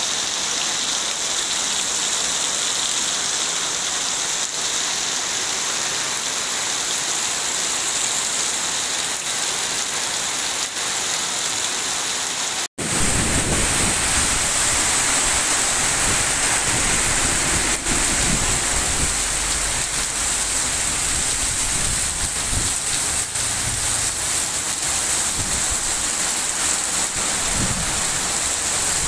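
Heavy rain falling steadily as an even hiss. About thirteen seconds in, the sound cuts abruptly to a louder stretch of rain with a low rumbling underneath.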